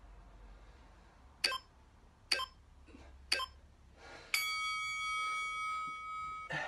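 Electronic workout interval timer counting down: three short beeps about a second apart, then one long beep lasting about two seconds that marks the end of the exercise interval.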